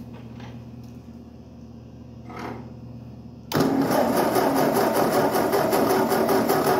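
Ford 8N tractor's four-cylinder flathead engine being cranked by its starter motor, starting suddenly about three and a half seconds in and going on in even pulses. It cranks a little slowly, off a weak 12-volt battery that is on the charger. Before the cranking, only a low steady hum.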